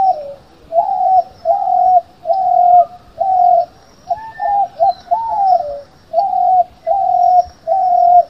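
A bird calling over and over: a short, mid-pitched note, mostly level and sometimes arched, repeated a little more than once a second.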